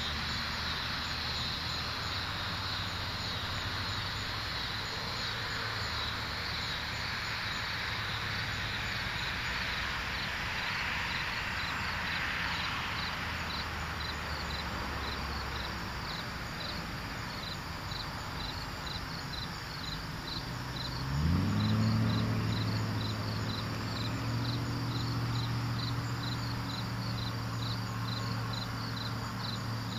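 Crickets chirping steadily, about two chirps a second. About two-thirds of the way through, an engine starts up and keeps running at a low, steady pitch.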